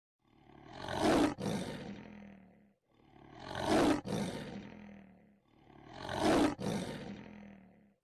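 Lion roaring, the same roar heard three times: each swells to a loud peak, breaks off for an instant, then tails away over a second or so.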